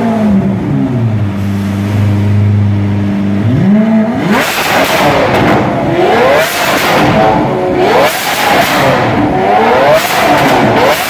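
Lamborghini Aventador LP700-4's V12 through an Fi Exhaust valvetronic catback with quad tips: revs falling to a steady idle, then, about three and a half seconds in, revved hard in quick repeated blips, the pitch shooting up and falling back each time, with a few sharp cracks among them.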